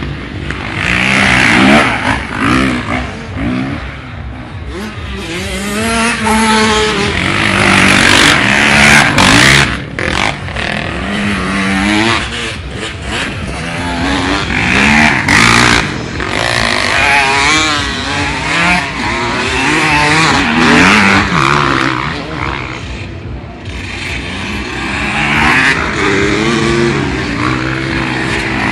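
Motocross bikes racing past one after another, their engines revving hard. The pitch climbs and drops back again and again with each gear change, and the sound swells and fades as each bike passes.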